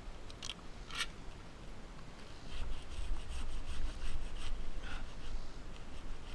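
Pruning handsaw cutting through a pine trunk chunk, starting about two and a half seconds in with quick back-and-forth strokes at about four a second. A couple of light clicks come in the first second.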